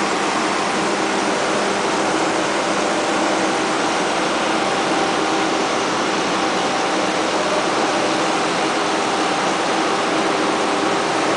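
Heavy excavator's diesel engine and hydraulics running steadily, a continuous noisy drone with several steady pitched tones through it.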